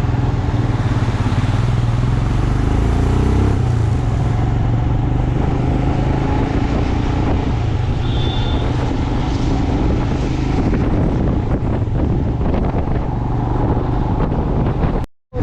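Motorcycle engine running steadily while riding on the road, with wind rushing over the microphone; the engine note shifts about three and a half seconds in.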